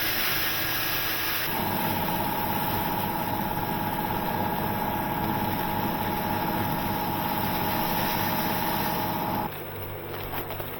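Gravel pouring from a 20 kg bag into a water softener's pressure vessel. It makes a steady rushing, rattling noise with a held tone over it, which stops suddenly about nine and a half seconds in.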